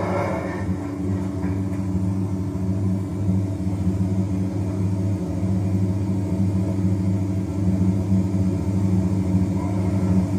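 A steady low hum made of a few even tones, growing slightly louder toward the end.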